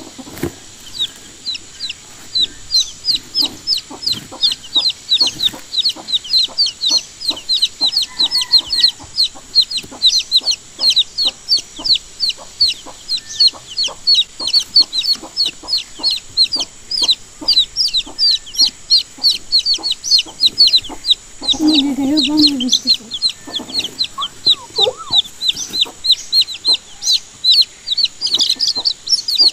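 Baby chicks peeping continuously, a rapid run of short, high, falling chirps, several a second.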